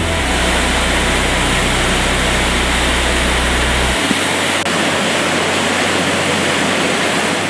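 Whitewater rapids of a mountain creek rushing loudly over boulders, a dense steady roar of water. Low held music notes lie underneath and shift to a new note about four seconds in.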